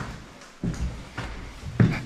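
Footsteps knocking and scuffing over litter on a wooden parquet floor: about four steps, the last the loudest.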